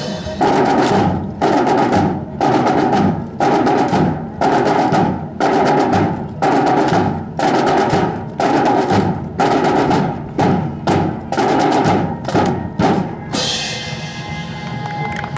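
A military band's drums playing a steady cadence, one beat pattern about every second, for drill accompaniment. About 13 seconds in the pattern stops with a crash that fades away.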